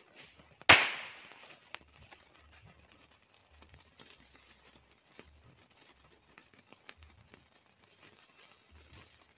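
A firecracker goes off with one loud, sharp bang less than a second in, followed shortly by a smaller crack. After that only faint scattered crackling and fizzing from the burning fuse and sparks at the firecracker pile.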